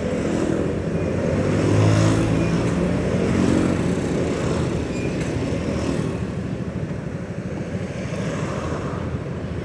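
Road traffic at a red light: vehicle engines running steadily, with a low engine hum that swells about two seconds in and then eases.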